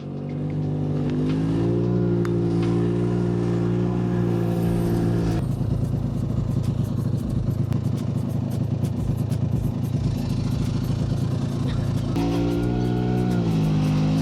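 Car engine running hard, its pitch swelling and easing. From about five seconds in it turns rough and rapidly pulsing, then near the end the pitch drops away.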